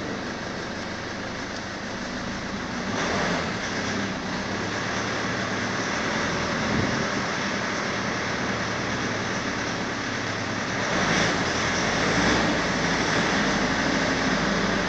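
Mazda BT-50's 3.0-litre turbo-diesel engine running, heard from inside the cab: it idles near 1,000 rpm, then the revs are raised to about 1,800 rpm around eleven seconds in, and the sound grows louder and holds there.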